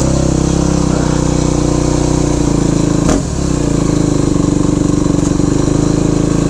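2001 Yamaha YZ426F's single-cylinder four-stroke engine running steadily at part throttle, with one sharp crack about three seconds in.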